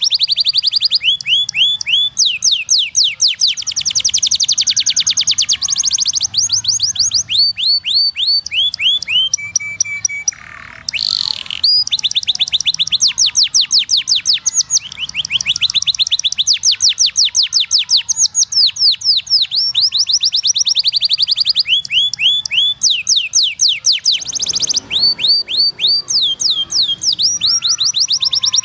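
Canary singing: long trills of fast, evenly repeated falling notes, the phrases changing speed every few seconds, with a short break about ten seconds in.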